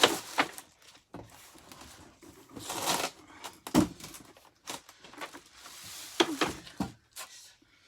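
Handling noise as the vacuum and its packaging are moved about: a scatter of short knocks and clatters, with a brief rustle about three seconds in.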